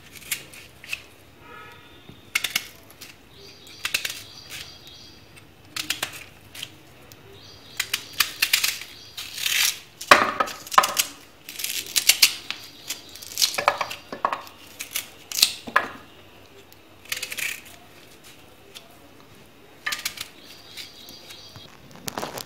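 A knife cutting small pieces off a raw green mango held in the hand, the pieces dropping onto a steel plate. The sound is a run of irregular clicks, chops and short clinks, sometimes in quick clusters.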